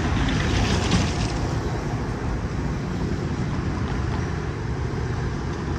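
Metra commuter train at the station, a steady loud rumble from its diesel locomotive and rolling cars.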